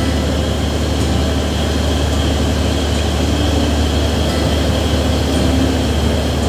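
Boat engine running steadily: an unbroken low drone with a fainter steady hum higher up.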